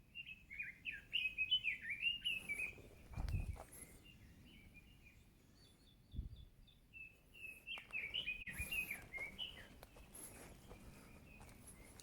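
A songbird singing two long, fast, warbling phrases, with a short run of higher, evenly spaced notes between them. Two low thuds fall about three and six seconds in.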